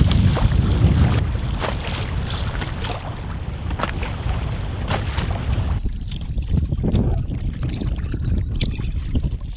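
Wind noise on the microphone over choppy lake water, with waves slapping and splashing against the hull of a Bergans Ally folding canoe pushing into a headwind. The wind noise is heaviest in the first second, and about six seconds in the sound turns duller.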